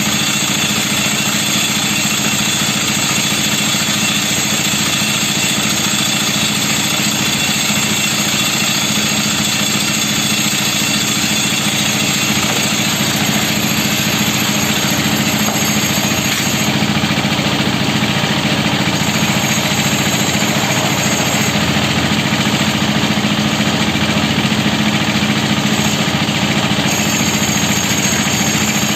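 Cement mixer engine running steadily at an even, unchanging speed while the drum turns.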